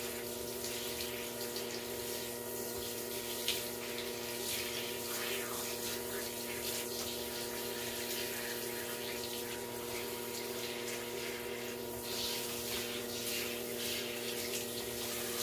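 Water running steadily from a tap or shower spray, rinsing shampoo off a small dog, with a steady multi-toned hum underneath.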